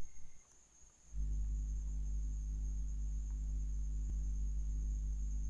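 A brief low rumble at the start, then a steady low electrical hum that starts abruptly about a second in. A faint high whine sits underneath throughout.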